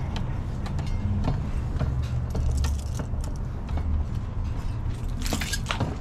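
Cut bicycle spokes clinking and jangling against a BMX rim and hub as the old spokes are cut out, with a cluster of sharper metal clicks about five seconds in. A steady low rumble runs underneath.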